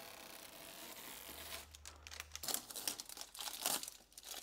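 Clear adhesive tape being peeled off the edges of a new TV screen and crinkled in the hand: faint crackling and tearing that start about a second and a half in.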